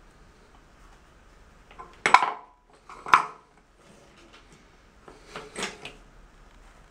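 Ceramic mosaic tile pieces clinking against the tiled floor, twice and sharply about two and three seconds in, the first with a short ring. Near the end come a few lighter taps and scrapes of tile on tile.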